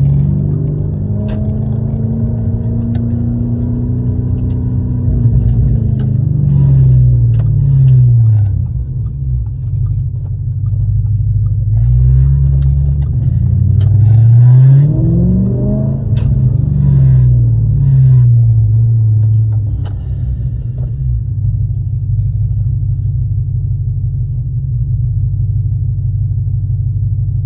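Audi RS5's catless 4.2-litre V8 with race headers, heard from inside the cabin. The revs climb and fall away twice, then settle into a steady, deep exhaust drone for the last several seconds.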